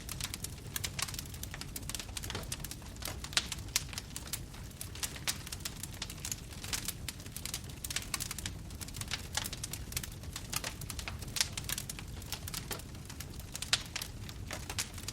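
Crackling fire sound effect: a steady low rumble with irregular sharp pops and snaps throughout.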